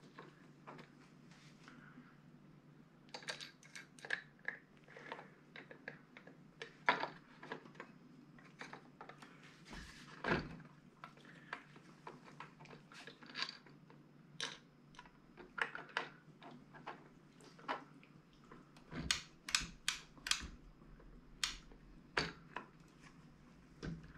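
Irregular clicks, taps and light knocks of parts being handled and fitted into a homemade tennis ball machine's metal frame and gear-and-motor assembly. A quick run of about five sharp clicks comes about three quarters of the way through.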